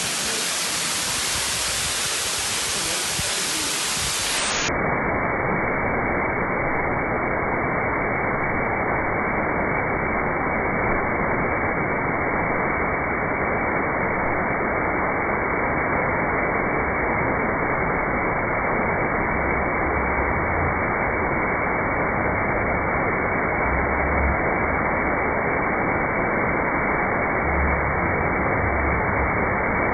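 Steady rushing hiss with no rhythm or pitch; about five seconds in it suddenly turns duller, losing its high end, and stays that way.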